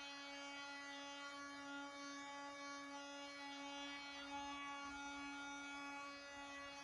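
Einhell 18-volt cordless oscillating multitool running with its sanding pad, smoothing plywood: a faint, steady buzzing hum that holds one pitch.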